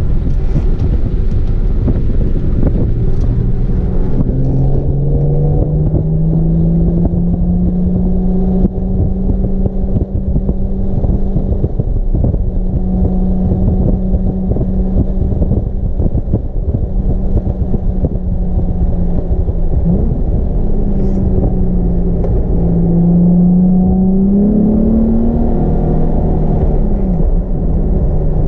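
Nissan 370Z's 3.7-litre V6 under hard track driving, heard from inside the cabin over heavy road and wind rumble. The engine note climbs in the first few seconds and holds for a long stretch. In the last third it falls and rises again several times as the car brakes and accelerates through corners.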